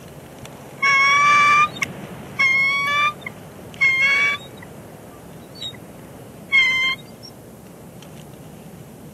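Bald eagles giving high, piping chatter calls: three bursts in quick succession, then a fourth after a pause of about two seconds, each under a second long. This is the calling between mates at an incubation shift change.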